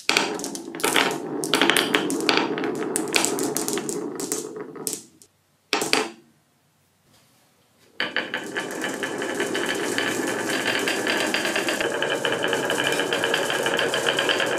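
Many marbles clattering and rolling down a marble run, a dense rattle of clicks that dies away about five seconds in. After a brief knock and about two seconds of quiet, a steady dense rolling rattle starts up again.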